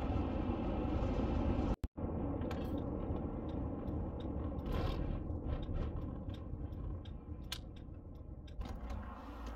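Steady low road and engine rumble heard from inside the cabin of a moving Honda Element, with scattered light clicks and rattles. The sound cuts out for a moment about two seconds in, then the rumble carries on.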